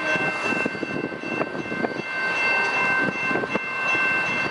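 Canadian Pacific coal train with an ES44AC locomotive and loaded hopper cars rolling past, its wheels rumbling on the curving track. Several steady high-pitched tones sound together over the rumble.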